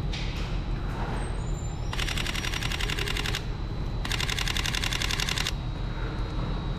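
Camera shutter firing in continuous burst mode: two runs of rapid, evenly spaced clicks, each about a second and a half long, the first starting about two seconds in and the second about four seconds in, over a steady low rumble.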